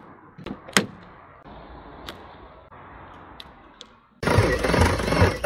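A few sharp clicks of a key working the door lock and the door, then, about four seconds in, the Porsche Boxster 986's 2.7 flat-six is suddenly cranked on the starter and turns over with loud, uneven pulses. The engine is not happy; the owner later finds bent valves hitting the pistons.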